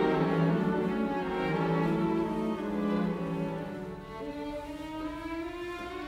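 Background music of bowed strings, violin and cello, playing slow held notes; it grows a little softer past the middle.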